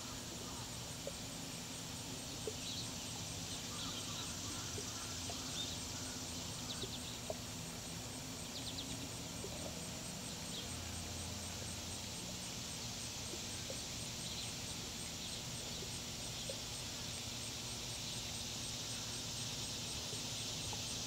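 Quiet outdoor ambience: a steady high hiss with scattered faint short chirps and ticks, clustered in the first half. No swan calls are heard.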